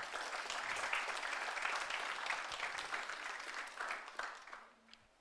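Audience applauding, a dense patter of many people clapping that dies away near the end.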